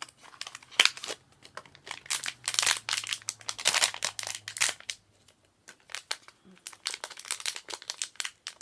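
Packaging wrapper being crinkled and torn open by hand to unwrap a collectible pin: dense, irregular crackling that stops briefly about five seconds in, then starts again.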